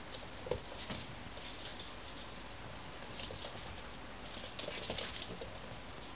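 A Maltese puppy and an American Bulldog puppy playing on a laminate wood floor, their claws clicking and paws scuffling in scattered bursts: a couple of sharp ones about half a second and one second in, more a little after three seconds, and a busy run of clicks between about four and a half and five and a half seconds.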